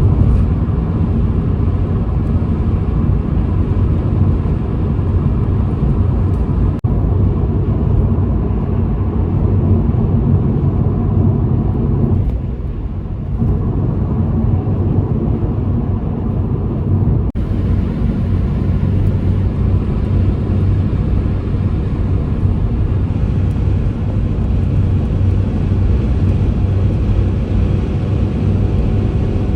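Ford Focus on the move: a steady engine and road rumble, with two sudden breaks about seven and seventeen seconds in.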